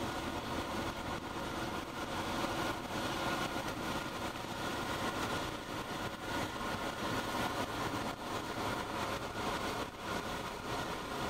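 Steady running noise of a car, heard inside the cabin: engine hum with road and wind noise.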